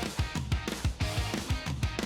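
Background rock music with strummed guitar and a fast, steady drum beat.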